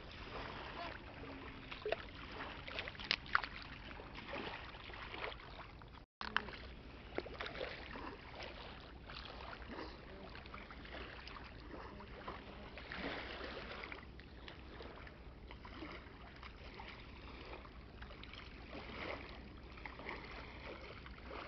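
Faint outdoor background noise over a steady low hum, with scattered light clicks and knocks; the sound cuts out completely for a moment about six seconds in.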